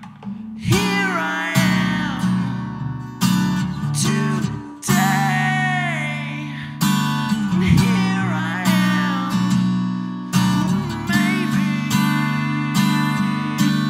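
Live solo acoustic guitar and voice: hard-strummed chords with sudden attacks, under a man singing in a strained, worn-out voice. The playing picks up after a brief lull at the start.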